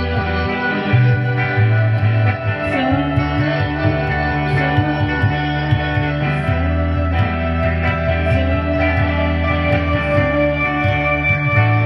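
A band at practice playing an instrumental passage: guitar through effects over sustained low notes that change in steps.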